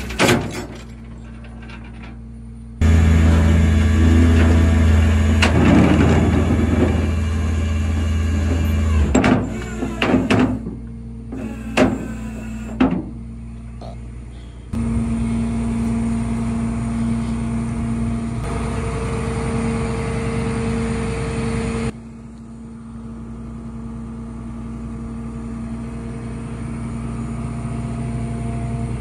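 Flatbed tow truck running, a steady engine drone with a steady hum over it that jumps abruptly in level a few times. Several sharp metallic knocks and clanks come between about nine and thirteen seconds in.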